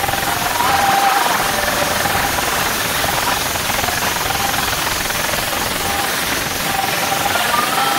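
Truck-mounted DJ sound system playing very loud to a packed crowd, heard as a dense, steady wash of noise with a faint wavering tone running through it.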